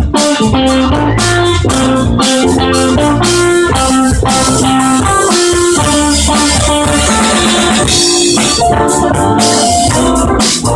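A live band playing: drum kit and bass guitar under electric guitar, with held melody notes over them. The sound is loud and rough in quality.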